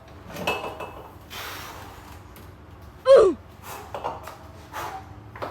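A person's voice: a loud, short gasp-like cry that falls steeply in pitch about three seconds in, among breathy sounds.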